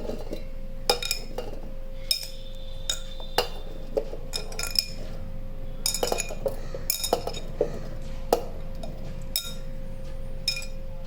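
Green grapes being put into a mixer-grinder jar: irregular clinks and taps as they land and are handled, over a steady hum.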